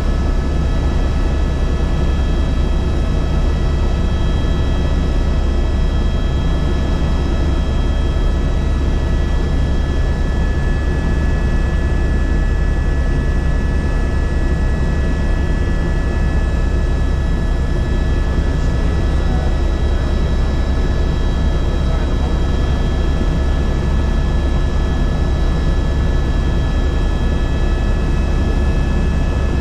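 Helicopter running steadily in flight, heard from on board: a constant low rumble with several steady high whining tones over it.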